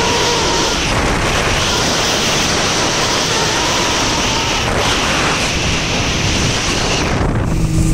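Speedboat running fast: a steady rush of wind on the microphone and the hiss of the churning wake, with the outboard motor running under it.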